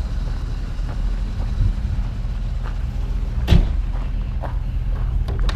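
The 1956 Dodge's 315 V8 running with a steady low rumble, with a single sharp clunk about three and a half seconds in and a couple of light clicks near the end.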